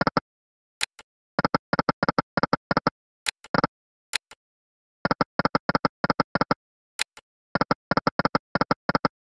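EGT Lucky & Wild online slot game sound effects: short electronic beeps in quick runs of about ten as the reels spin and stop, each run led by a single click. Three spins go by this way, none paying out.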